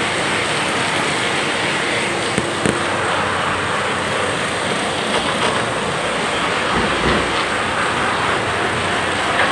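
Heavy rain falling on an open umbrella and wet pavement: a steady, dense hiss that doesn't let up.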